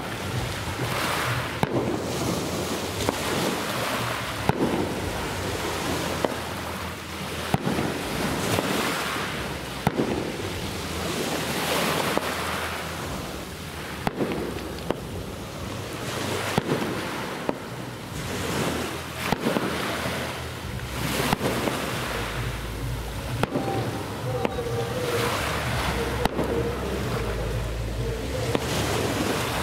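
Distant fireworks over the sea: scattered sharp cracks and bangs at irregular intervals, over the hiss of waves washing on the shore and wind on the microphone.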